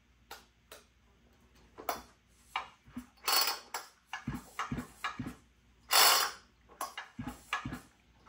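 Husqvarna 455 chainsaw being handled with clicks and knocks, and its recoil starter rope pulled a few times with the compression release pushed in, each pull a short rasping zip. The engine does not fire.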